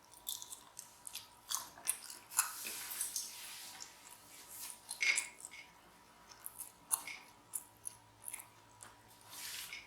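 Close-miked mouth sounds of a person chewing and eating soft, cheesy macaroni and cheese: irregular wet smacks and clicks.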